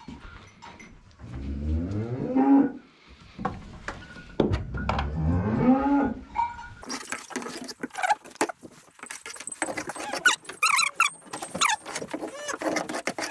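Cattle mooing: two long, low calls that rise in pitch, about a second in and again around five seconds. From about seven seconds a broom scrapes and knocks along the barn floor under the animals, a busy run of scratchy strokes.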